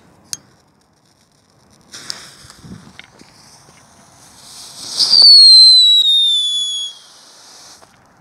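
Röder Schockalino, a small Category 1 ground firework, hissing as it burns. About five seconds in it gives a loud whistle that falls slowly in pitch for about two seconds, and the hiss dies away near the end.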